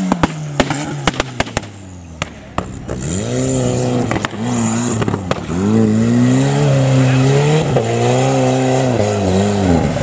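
Engine of a super open class 4x4 off-road race buggy, revved hard up and down over and over. For the first two seconds or so the revs drop and a quick string of sharp cracks is heard, before the engine climbs again.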